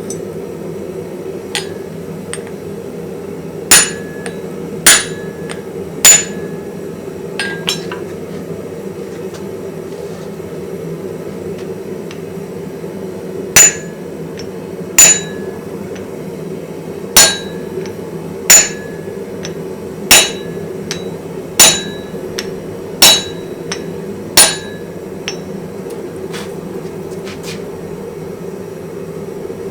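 Hand hammer striking steel on an anvil with a bright metallic ring: three blows, a few light taps, then a run of eight evenly paced blows about a second and a half apart. A steady low hum runs underneath.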